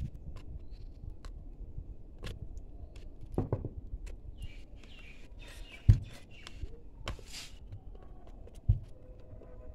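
Handling noise of a small Bluetooth speaker being worked in the hands: fingers pressing and rubbing on the driver's rubber surround and the plastic casing, with scattered clicks and two sharp thumps, the louder about halfway through and another near the end.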